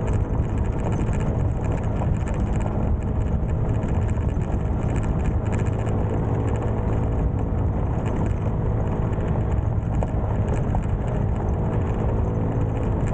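Small single-cylinder motorbike engine running steadily under way on a rough dirt road, with frequent jolts and rattles from riding over rocks and washboard.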